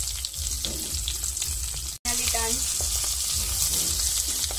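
Pieces of hilsa roe frying in hot oil in a non-stick wok: a steady sizzle, with a spatula scraping and tapping in the pan as the pieces are moved. The sound cuts out for an instant about two seconds in.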